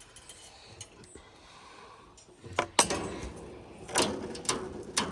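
Electric fence wire being handled and bent by hand: a few sharp metallic clicks and rattles, starting about halfway through.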